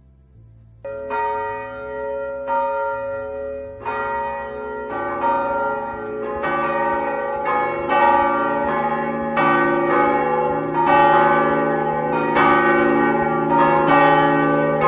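Church bells ringing: several bells struck one after another, starting about a second in, each stroke ringing on under the next, with a deeper bell joining about six seconds in.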